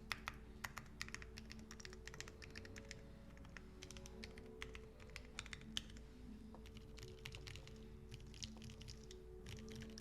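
Typing on a Midway60 mechanical keyboard with factory-lubricated BSUN silent switches, an aluminium plate and GMK keycaps: quiet keystrokes in quick, irregular runs.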